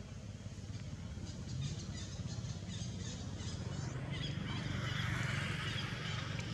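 High, rapid chirping animal calls from about a second in, giving way to a hissing, rasping drone near the end, over a steady low hum.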